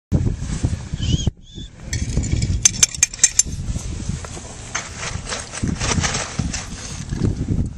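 Wind rumbling on the microphone, with a handful of sharp metallic clinks about three seconds in, around the cab of a miniature steam locomotive.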